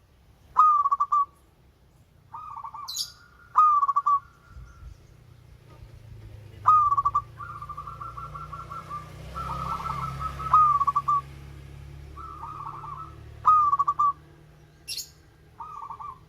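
Zebra dove (perkutut) singing: a series of short, quavering coos, several drawn out into longer trilled phrases in the middle.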